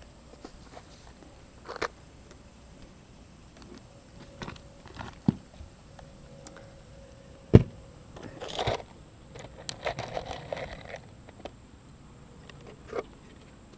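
Work on a shed roof: scattered knocks, taps and scraping as materials are handled. There is one sharp knock about halfway through, followed by a couple of short scrapes.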